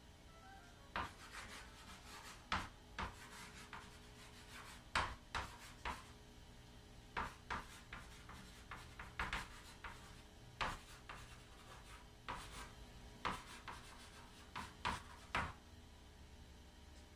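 Chalk writing on a chalkboard: irregular clusters of short scratching and tapping strokes, stopping shortly before the end.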